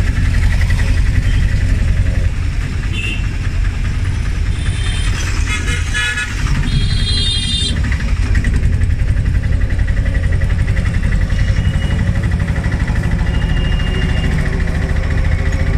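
A motor vehicle's engine running steadily in street traffic, with horns tooting several times between about three and eight seconds in and two short beeps later on.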